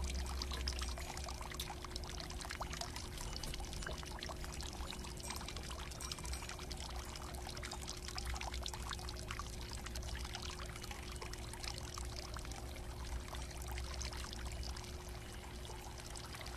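Water pouring steadily into a pool, an even, unbroken splash of running water.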